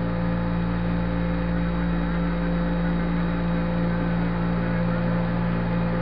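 Steady hiss and hum of the Apollo 11 air-to-ground radio transmission from the Moon, an open channel with no voice on it.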